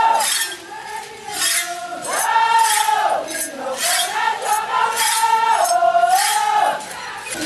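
Voices singing a chant in long held notes that rise and fall, with sharp percussive hits through it; the singing drops away briefly about half a second in and resumes near two seconds.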